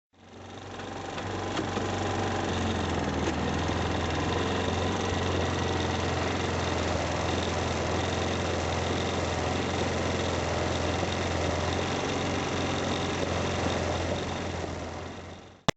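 ATV engine running steadily with no revving. It fades in over the first second and fades out near the end.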